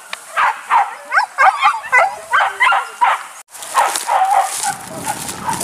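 Several hunting dogs barking and yelping in quick, repeated high calls, a few a second, with a brief break about three and a half seconds in, after which the calls come denser and lower.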